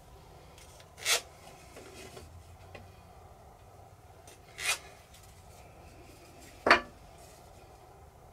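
Pencil scratching lines across the end grain of a square wood blank along a center-finder's edge, marking its center: three short strokes, about one, four and a half and nearly seven seconds in, the last the loudest.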